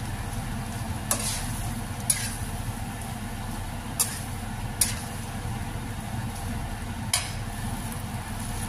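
Metal spatula scraping and knocking against a non-stick wok about five times while stirring chicken intestines simmering in their liquid, over a steady low rumble.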